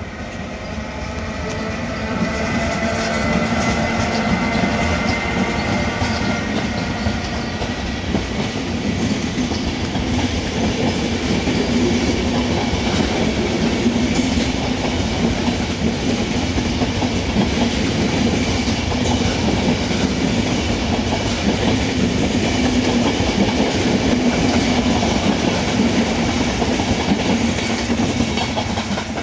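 Night train hauled by two FS E.402B electric locomotives running past, its wheels rumbling and clattering on the rails; the sound builds over the first few seconds and then holds steady.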